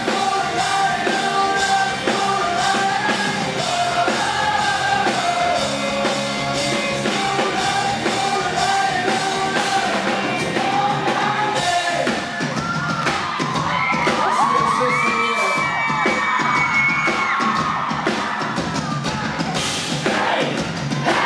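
Live pop-punk rock band playing, with electric guitars, bass, drums and lead vocals, recorded from within the audience. About halfway through, the steady sung melody gives way to high gliding yells and whoops over the band.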